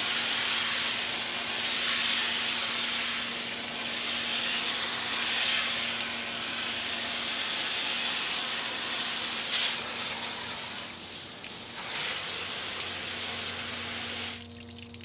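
Pressure washer wand jetting water onto a Polaris RZR's radiator fins, a loud hiss that rises and falls as the spray moves, with a steady low hum underneath. The spray cuts off suddenly near the end.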